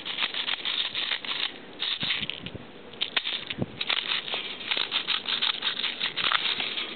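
Airsoft BBs clicking and rattling as they are loaded into the small magazine of an L96 airsoft sniper rifle: a rapid, irregular patter of many tiny clicks, with a few duller knocks about two to three and a half seconds in.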